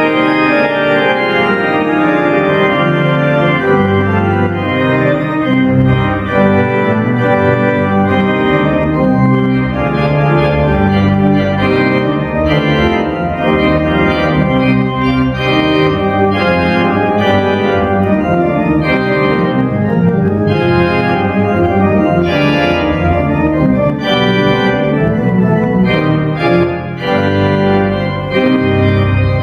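Schantz pipe organ (three manuals, 40 ranks) played loud in a dense, many-voiced passage, with a pedal bass line moving underneath.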